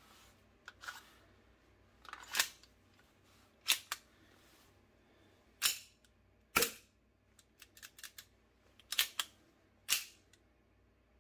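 Army Armament R32-2 gas blowback airsoft pistol clicking as its action is worked. About a dozen sharp clicks and snaps come at irregular spacing, with a tight run of small clicks late on, and the loudest snap comes a little past the middle.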